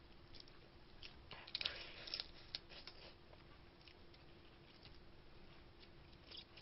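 Faint eating sounds: snow crab shell and meat being picked apart by hand and chewed, giving a few soft clicks and crackles, mostly between one and three seconds in.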